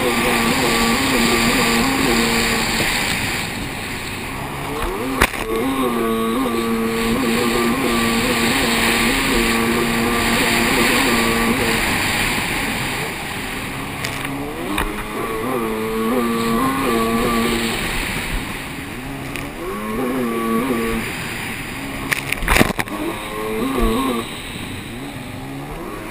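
Racing jet ski engine running hard at a steady high pitch, easing off and picking up again several times through the turns, over a hiss of spray and wind. Two sharp knocks stand out, about five seconds in and near the end.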